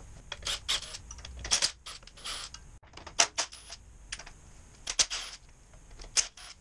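Irregular short bursts of a cordless power tool and sharp metallic clicks and clinks as bolts are run out of an Isuzu 4BD2T diesel engine during teardown, about a dozen separate bursts with brief pauses between them.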